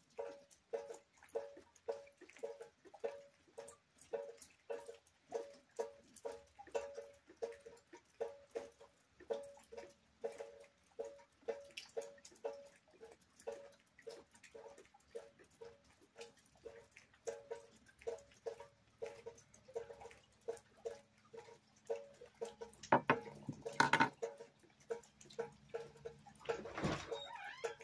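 Rainwater dripping steadily into a bucket: a regular run of short, ringing plinks on one pitch, about three a second. A few louder, sharper knocks come near the end.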